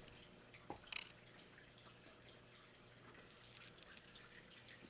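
Near silence: faint room tone with a few soft ticks about a second in.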